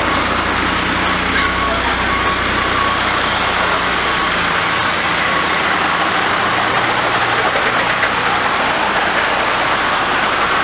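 Seagrave tower ladder fire truck's diesel engine running as it backs up, with its reversing alarm beeping over and over. The engine note drops about halfway through, and a short hiss of air comes at the same moment.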